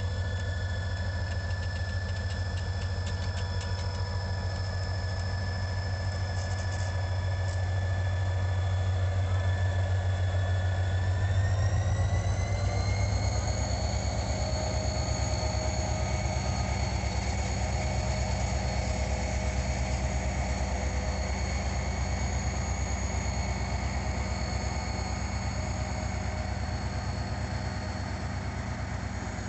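Diesel locomotive engine running steadily with a strong low drone, then about 11 seconds in its pitch rises over a couple of seconds as the engine revs up to a higher throttle setting and holds there.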